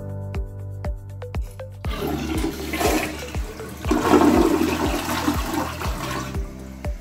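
Newly installed two-piece toilet flushing: water rushes into the bowl and swirls down the drain, starting about two seconds in and lasting about four seconds. Background music with a steady beat plays underneath.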